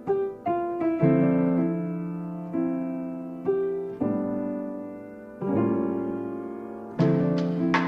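Background music: a gentle piano piece, with chords struck every second or so and left to ring and fade.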